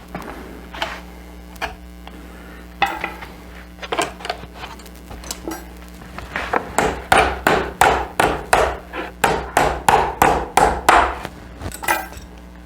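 Hammer blows working an old spring clip loose from a reclining chair's frame: a few scattered knocks, then a quick run of a dozen or so sharp strikes about halfway through.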